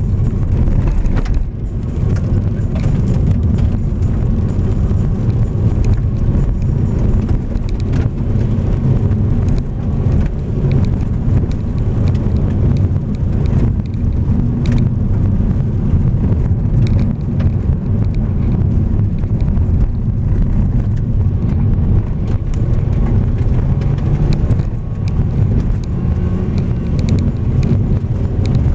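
Car driving on a gravel road, heard from inside the cabin: steady low engine and tyre rumble, with frequent small clicks and knocks from gravel under the tyres.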